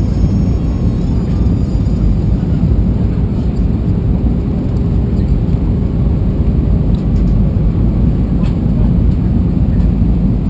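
Steady low cabin rumble inside an Airbus A320-200 on approach: engine and airflow noise heard from the passenger cabin.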